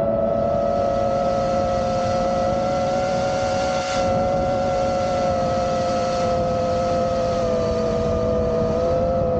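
Brushless motors and propellers of a 5-inch FPV quadcopter whining at a steady cruising throttle, with a hiss of prop wash and wind. The pitch holds nearly level, sagging a little near the end.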